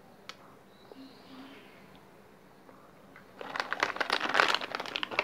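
A plastic snack packet crinkling as it is handled, a dense run of crackles starting about three and a half seconds in and lasting to the end.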